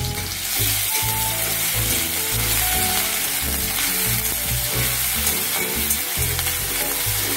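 Chopped onion, garlic, ginger paste and chilli paste sizzling steadily in hot vegetable oil in a pan.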